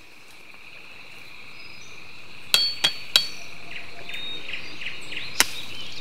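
Machete chopping a thin bamboo stalk: three quick sharp strikes about a third of a second apart, each with a brief ringing tone, and one more strike near the end. Under it a steady high insect drone fades in, with a few bird chirps.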